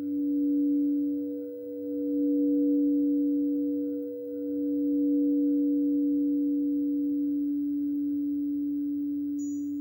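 Frosted quartz crystal singing bowls ringing together: a strong low steady tone with a fainter higher tone above it. The loudness dips twice in the first few seconds, then the ring slowly fades, and the higher tone dies away near the end. Right at the end a few high, bright metal chime notes begin.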